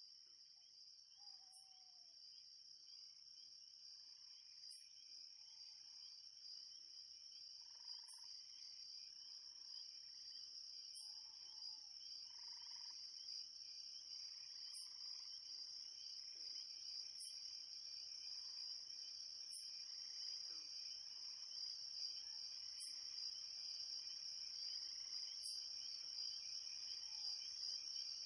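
Night chorus of crickets: a steady high trill, with a sharper high chirp repeating about every two and a half to three seconds and a few faint lower calls. It fades in gradually, growing louder throughout.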